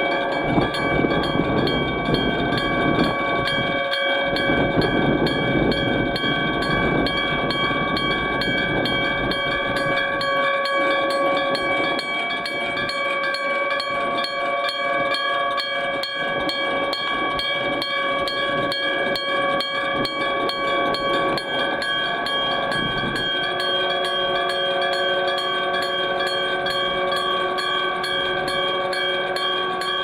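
Iron electric gong bell of a railway level crossing ringing continuously, its hammer striking rapidly and evenly to give several overlapping ringing tones, signalling that the crossing is active for an approaching train. A rushing noise runs beneath it and eases off about two-thirds of the way through.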